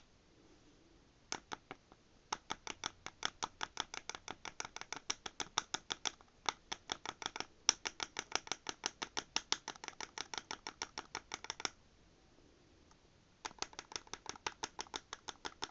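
Flat clay blade chopping soft green polymer clay against a wooden tabletop: quick, light taps, about six or seven a second, in several runs, with one pause of about a second and a half near the end.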